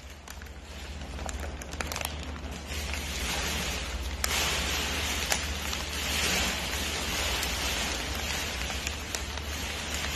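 Crinkly foil chip bag rustling and crackling continuously as a raccoon handles it and eats from it, over a steady low hum.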